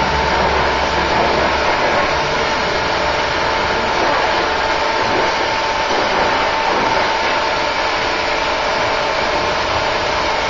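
Oxy-fuel cutting torch hissing steadily as it cuts through steel, a constant hiss with a faint steady whistle in it.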